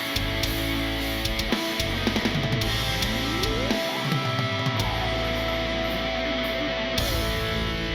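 Intro music: rock with distorted electric guitar and drum kit.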